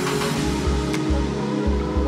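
Background music: held tones over a pulsing bass line, with a light percussive click about a second in and again near the end.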